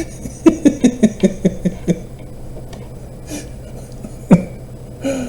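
A man laughing in a quick run of about eight short pulses that fall in pitch, then one short cough-like burst about four seconds in.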